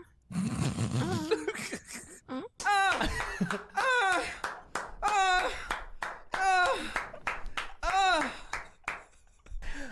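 Men's exaggerated mock porn moaning: about five drawn-out moans, each rising and falling in pitch, about one a second, after a noisy burst of laughter at the start.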